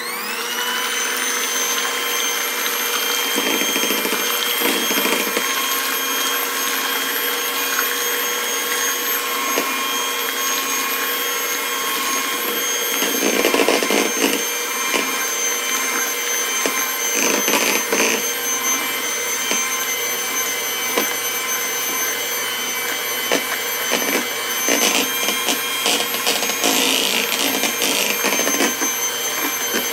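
Electric hand mixer switching on and running at a steady whine, its beaters churning flour into wet pancake batter, with a few louder rattles about halfway through.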